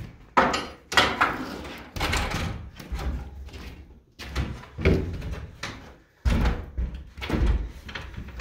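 A wooden-floored room rings with a series of loud knocks and clatter, about six sharp hits with smaller rattles between, as a tall stepladder is shifted about and its metal spreader bars are opened out.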